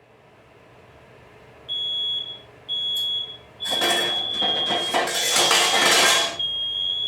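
Smoke alarm going off: two short, high-pitched beeps about two seconds in, then a near-continuous shrill tone. It is a nuisance alarm, set off by cooking at the stove it hangs too close to, with no smoke. A loud rush of noise lies over the alarm for a few seconds in the middle.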